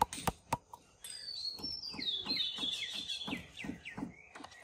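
A few light taps in the first second, then a bird singing a run of short chirps that fall in pitch, for about three seconds.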